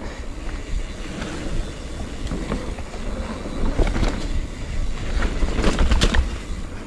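Canyon Spectral mountain bike descending a dirt singletrack at speed: a steady rumble of wind on the microphone and tyres rolling over packed dirt, with the chain and frame rattling over bumps. The knocks and rattles come thicker and louder about four to six seconds in.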